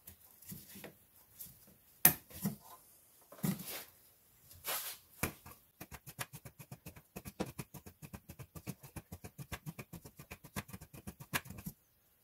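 Hand work at a diesel fuel filter housing and its hose fittings: scattered clicks and knocks. About halfway in this turns into a fast, even clicking, roughly nine a second, that stops shortly before the end.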